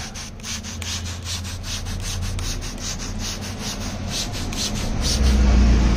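Hand trigger spray bottle squeezed rapidly, misting water onto a car's waxed paint in quick hissing squirts, about four or five a second. A low rumble swells near the end.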